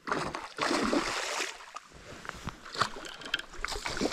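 A hooked pike thrashing and splashing at the water's surface beside the boat, a loud splashing for about the first second and a half. After that come scattered short clicks and knocks.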